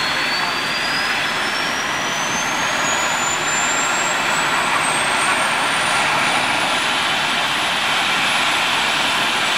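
Trauma helicopter's turbine engine spooling up on the ground: a whine rising steadily in pitch over a constant rush of engine and rotor noise.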